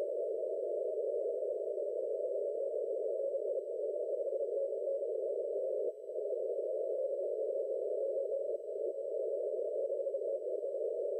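Shortwave transceiver receiving CW on the 30-metre band: a steady hiss of band noise squeezed through a narrow CW filter, pitched in a band around 500 Hz. No clear Morse signal stands out, and the audio drops out briefly about six seconds in, just as the display shows the two VFO frequencies swapped.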